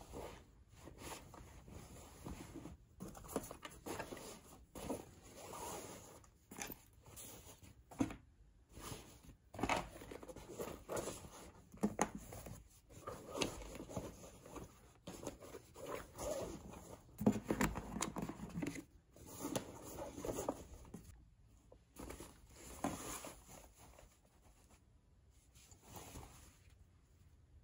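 Canvas tote bag and fabric pouches rustling, scraping and bumping as items are packed into the bag, in a string of irregular soft handling noises that tail off near the end.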